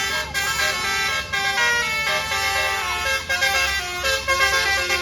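A bus's telolet basuri horn, a multi-tone electric horn, playing a tune of held notes that step from one pitch to the next with no break.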